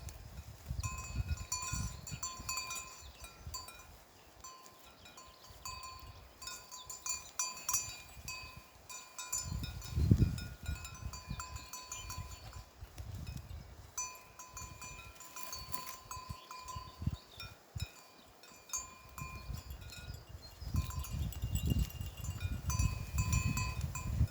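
Bells on a herd of goats clanking irregularly as the animals move about, with intermittent low rumbles, the loudest about ten seconds in.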